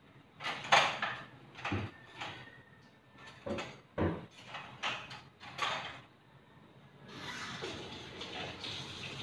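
Kitchen utensils and dishes clattering as they are handled at a sink: a run of about ten sharp knocks and clinks over five seconds. A steady rushing noise starts about seven seconds in.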